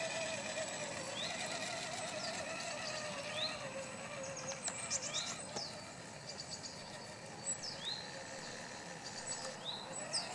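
Electric motor and gearbox of an RC scale crawler whining as it drives, the pitch wavering with the throttle and fading as the truck pulls away about halfway through, then rising again near the end. Birds chirp with short rising calls every second or two.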